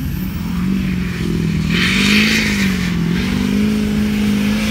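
Lifted GMC Sierra 2500HD pickup's engine revving hard as the truck spins its tyres across a dirt field, its pitch wavering up and down. A rushing hiss rides over it for about a second, a little under two seconds in.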